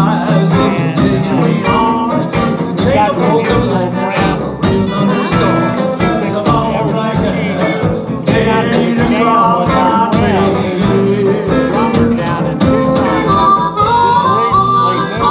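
Live blues band playing a rumba groove in G on electric guitars, bass and drum kit, with amplified harmonica cupped to a vocal microphone; near the end the harmonica plays long held notes over the band.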